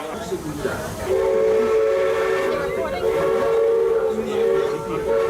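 Replica Baldwin three-chime steam whistle sounding one long blast: a steady chord of several notes that starts about a second in and holds for about four seconds.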